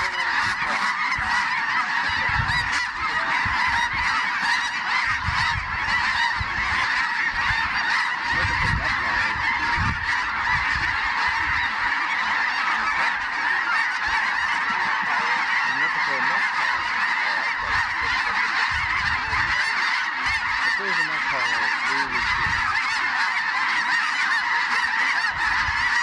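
A huge flock of snow geese calling all at once as they circle and land: a dense, unbroken din of high honking and yelping, with no let-up.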